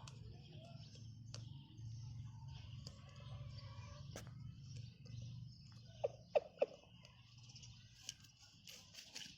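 Faint bird chirping over a steady low hum, with three short, sharp sounds in quick succession about six seconds in.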